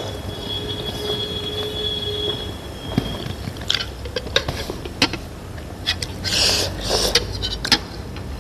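Spoon clinking against a ceramic soup bowl and eating noises, with a few short noisy bursts in the second half. A steady high whistle-like tone runs through the first three seconds, then stops.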